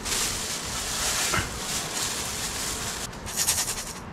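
Dry uncooked rice poured into a cooking pot: a steady hissing patter of grains for about three seconds, then a few short rattles near the end.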